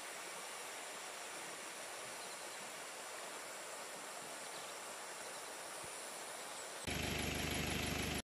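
Steady, even outdoor hiss over a wet, grassy valley, with no distinct tones in it. About a second before the end, a louder, different noise cuts in, then stops abruptly.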